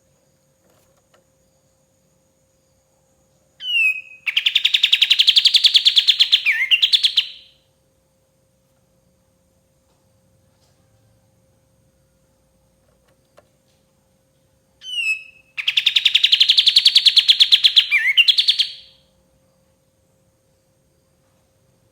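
Kapas tembak songbird singing twice: each song opens with a short rising note and runs into a rapid, fast-repeating trill of about three seconds. The first song comes a few seconds in, the second about fifteen seconds in, over a faint steady hum.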